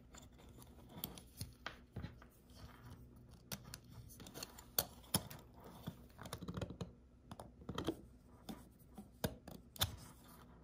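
Faint, irregular clicks and small scrapes from the plastic housing and metal parts of an Alps K-series slide fader being handled, pried and fitted back together, with a few sharper snaps among them.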